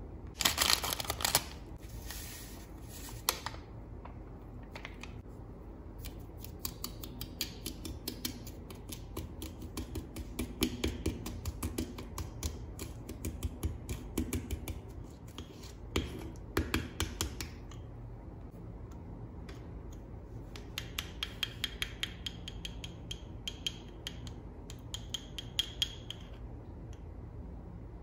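Water tipped from a small plastic cup into a ceramic dish about a second in. Then a small plastic spoon stirs and scrapes candy powder and water against the dish, making fast scratchy clicks in long spells.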